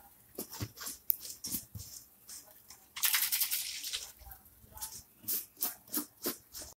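Light clinks and knocks of a mixer jar and steel utensils being handled, with about a second of rushing, splashing water about three seconds in as water swills the leftover ground coconut and masala from the mixer jar.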